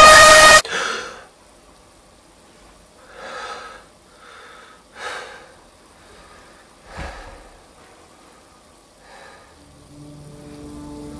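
A loud, harsh blast with ringing tones that cuts off suddenly, then a person's heavy breaths and gasps, about five, spaced a second or two apart. A low steady drone fades in near the end.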